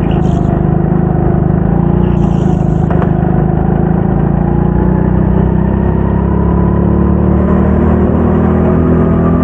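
Go-kart engine running steadily during a race, its pitch drifting a little up and down with speed. Brief faint high hisses near the start and about two seconds in.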